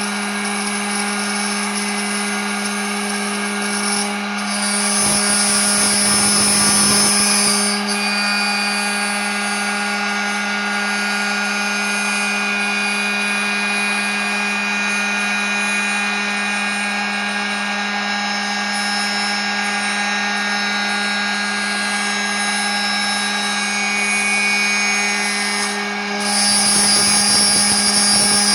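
CNC router spindle running at steady high speed with a constant whine while its cutter mills a pocket into a laminated hardwood block. The cutting gets louder and harsher for about three seconds about five seconds in, and again near the end.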